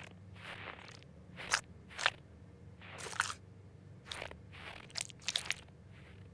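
Cartoon sound effects of a fingertip digging around inside a nostril for a booger: a string of short, sharp, wet-dry noises, several in quick succession near the end.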